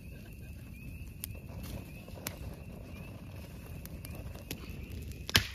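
Campfire of dry sticks and twigs burning: a steady low rush of flame with scattered sharp crackles and pops, the loudest pop near the end.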